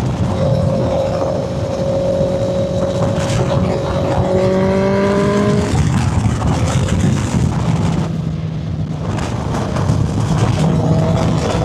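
Honda CB650F inline-four engine running through a custom exhaust with a CBR650R muffler, its pitch rising for a moment about halfway through before settling again.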